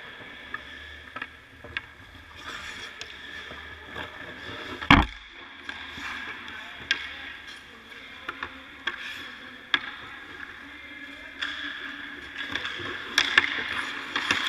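Ice hockey goalie practice heard from ice level: skates and goalie pads scraping on the ice, with sticks and pucks clacking several times. There is one loud, sharp crack about five seconds in.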